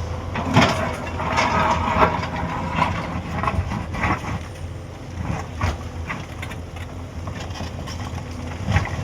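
Hyundai 210 excavator's diesel engine running steadily at work, with scattered knocks and scrapes over it, busiest about a second in.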